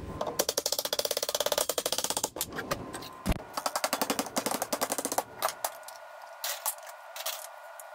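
Mallet blows on a strip of sheet metal clamped to a wooden workbench, bending it over into a flange. The blows come in quick runs of several a second and thin out to scattered hits near the end.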